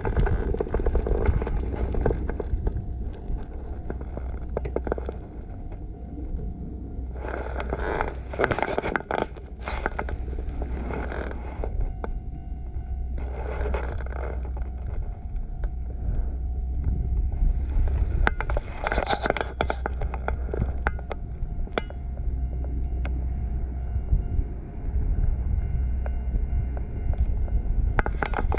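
Wind buffeting the handlebar-mounted camera's microphone: a steady low rumble, with gusts of louder rushing noise about a quarter of the way in and again about two thirds of the way in.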